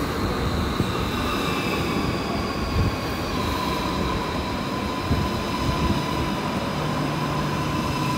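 Renfe Cercanías Civia electric multiple unit pulling into the platform at low speed. It makes a steady low rumble with a few knocks from the wheels, over a high whine of several held tones.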